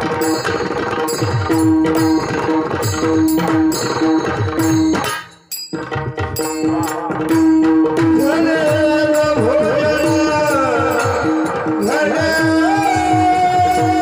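Kirtan music: a hand drum plays rapid strokes over a steady held drone, with sharp regular percussion keeping time. The music drops out briefly about five seconds in. About eight seconds in, a melody line with sliding pitch enters and ends on a long held note.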